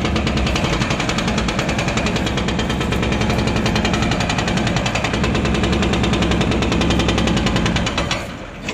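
Demolition breaker hammering concrete in a rapid, steady rhythm, stopping abruptly near the end.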